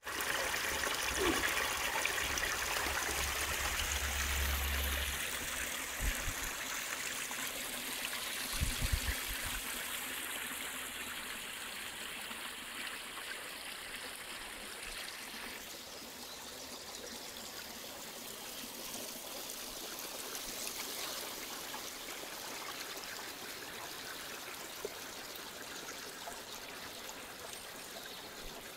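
Water gushing out of a pipe outlet in a hillside and splashing onto the stones below, the rushing growing gradually quieter, then a small forest stream trickling over stones. A few low bumps in the first ten seconds.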